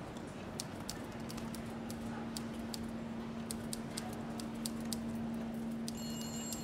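Sparse sound score: a steady low hum with scattered sharp clicks and ticks, and high chime-like tones that come in near the end.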